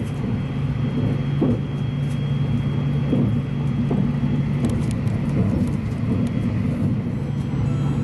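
Running noise of a JR West 683-series limited express train at speed: a steady low rumble and hum, with a faint high whine partway through.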